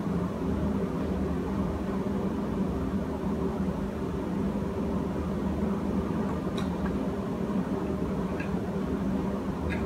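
Steady low drone of a ship's engine-room machinery running, with a faint metallic click about six and a half seconds in.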